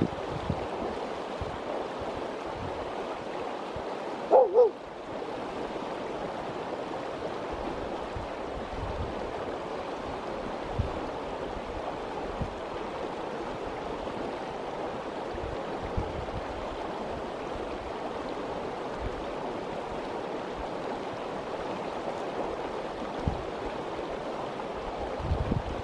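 Fast, shallow river rushing steadily over a rocky bed, with occasional low buffets of wind on the microphone. About four seconds in comes a short, loud pitched sound in two quick notes, like a bark.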